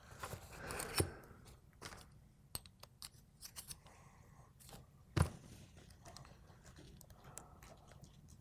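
Light metal clicks and knocks from hand tools and parts being handled on a Hardinge lathe cross slide, as an Allen key is brought to the handwheel collar's set screw. There is a sharper knock about a second in and the loudest one about five seconds in, with small ticks scattered between them.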